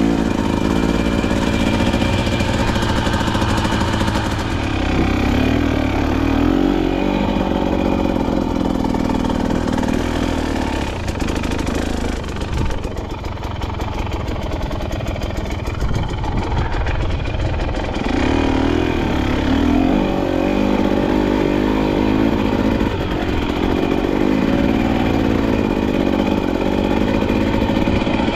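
KTM dirt bike engine running under load on a trail climb, its pitch rising and falling with the throttle. The engine eases off for a few seconds near the middle, then pulls again.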